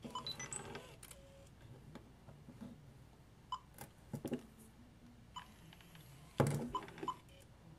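Fujifilm FinePix AX compact digital camera powering on: a brief run of electronic start-up tones and whirring as the zoom lens extends, then a few quiet clicks and short beeps from its buttons. A louder knock from handling the camera comes about six and a half seconds in.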